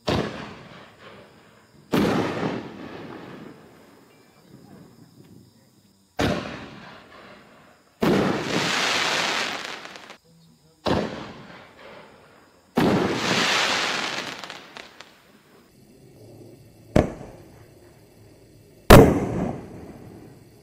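5-inch red, white and blue canister shells firing and bursting in the night sky: a series of eight sharp booms a few seconds apart. Several of the booms trail off over about two seconds.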